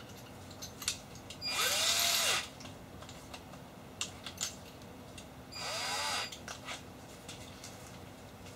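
Electric drill drilling into wood in two short runs of about a second each, the motor speeding up and winding down each time, with a few small handling clicks between.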